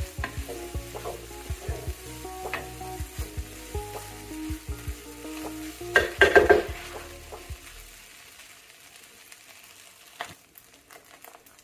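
Wooden spatula stirring and scraping fried rice in a hot stainless steel pan, with sizzling and a run of taps and scrapes against the pan. A louder burst about six seconds in; quieter over the last few seconds.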